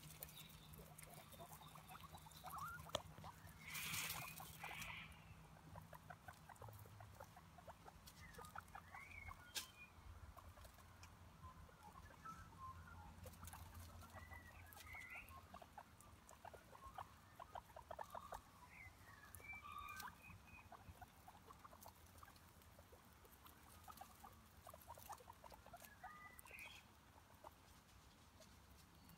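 Guinea pigs nibbling grass and shuffling over dry leaves, with quiet crunching clicks and rustles, a louder rustle about four seconds in, and short high squeaks now and then.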